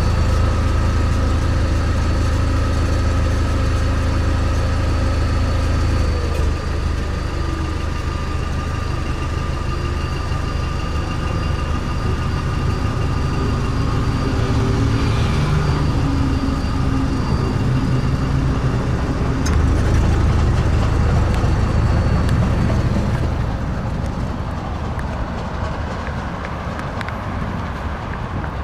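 Car engine idling with a steady low hum, heard from underneath the car near the exhaust muffler. It gets somewhat quieter near the end.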